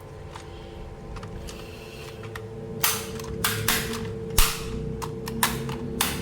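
Plastic toy packaging being handled: a run of about seven sharp crackles and snaps in the second half, over a steady hum.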